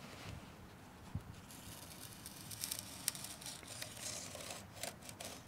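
Faint rustling and light scraping of gloved hands fitting a sheet-steel piece against a dump-bed plate and marking it, with a few small clicks.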